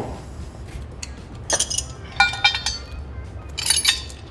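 Steel lifting chains and hooks clinking against each other and the battery's steel case, in three short clusters of metallic clinks with brief ringing, over a steady low hum.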